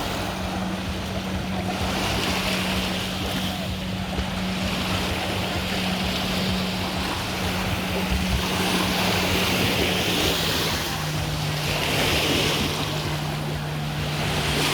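Sea water washing in repeated swells every few seconds, over a steady engine hum that drops in pitch about ten seconds in.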